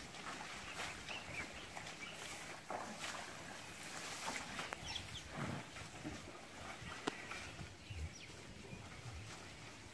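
African elephants moving in a mud wallow, with scattered soft splashes, squelches and low thuds, the heaviest about halfway through and again near the end. Birds chirp briefly now and then.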